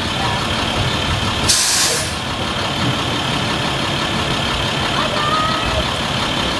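School bus engine idling steadily, with a short hiss of air from its air brakes about one and a half seconds in.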